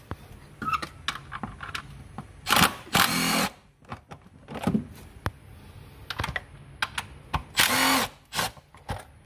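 Cordless power tool with a socket running in two short bursts, about three and eight seconds in, backing out the 10 mm bolts on the engine's air intake duct. Light clicks and knocks of the tool and socket in between.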